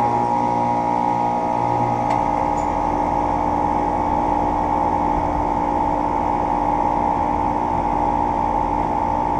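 Carrier central air conditioner condensing unit with a Copeland scroll compressor running steadily just after start-up, its compressor hum carrying steady tones along with the fan. About two seconds in, a lower hum stops with a faint click as the second unit shuts off.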